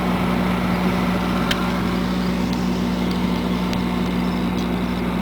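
Steady electrical hum of a running refrigerator-freezer, its compressor and fan left on while it is being defrosted with the door open.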